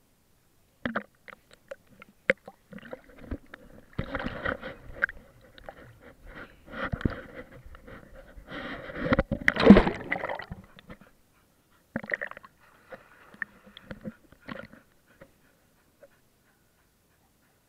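Water splashing and sloshing against a camera held at the surface beside a swimming bull terrier. It comes in irregular bursts with sharp slaps, the loudest about ten seconds in, and dies away after about fifteen seconds.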